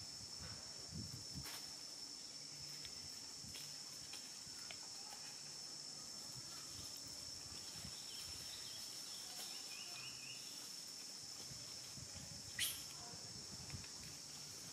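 Quiet outdoor ambience with a steady, high-pitched insect drone, a few faint ticks, and one sharper click late on.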